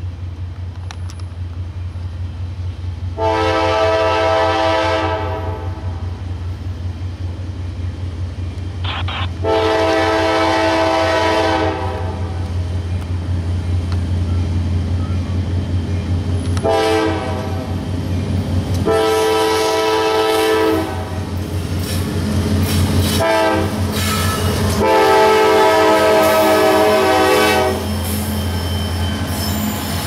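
A CSX GE AC4400CW diesel locomotive's multi-chime air horn sounding six blasts, four long and two short, played as a horn show. Underneath runs the steady low drone of the diesel engines as the freight approaches.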